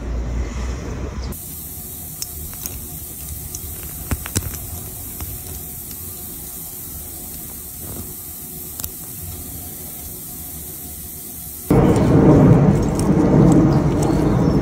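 Low wind rumble on the microphone, then a steady hiss with a handful of sharp metallic clicks as a silver wallet-chain clasp is worked open and shut. About twelve seconds in, loud wind buffeting on the microphone cuts in and is the loudest part.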